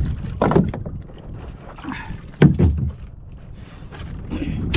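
Knocks and clunks of fishing gear being handled inside a small wooden fishing boat, two louder ones about half a second and two and a half seconds in, over a steady low rushing of water and wind.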